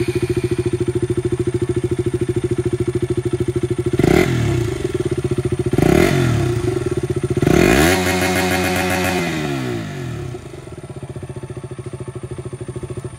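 KTM RC 200's 199.5cc single-cylinder engine idling through its underbelly exhaust, revved three times while standing still: two short blips about four and six seconds in, then a longer rev whose pitch falls back to a steady idle.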